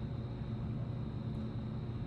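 Steady low hum with a faint hiss and a thin high whine: room tone, with no distinct event.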